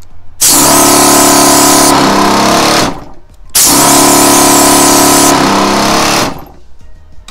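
Compressed air blasting out of a trigger-type tyre inflator gun on the hose from a 12-volt air compressor's outlet, in two long loud bursts of about two and a half seconds each with a short gap between, a buzzing tone running through the hiss.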